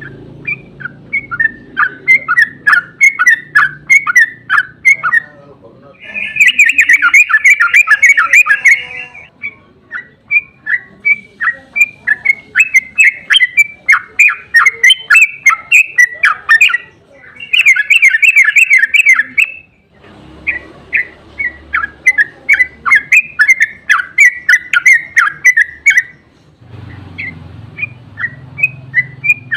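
Yellow-vented bulbul (trucukan) singing: a fast series of short chirping notes, several a second. Twice it breaks into a long, dense, rapid run of a couple of seconds, the 'ropel' song used to lure other bulbuls into answering.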